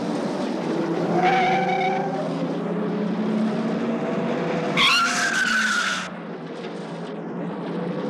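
Road traffic: a car passing with a hiss of tyres, and tyres screeching twice. The second screech is the loudest, starting sharply about five seconds in and cutting off about a second later.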